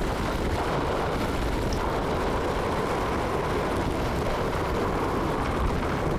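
Heavy jet of water and Orbeez gushing from a large pump's discharge hose and splashing into a steel dump truck bed: a steady rushing of water with a low rumble underneath.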